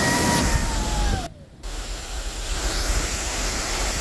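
Waterfall rushing in a steady roar of falling water. Through the first second a steady high tone with an overtone sounds above it. The sound cuts out briefly about a second and a half in, then the rush resumes.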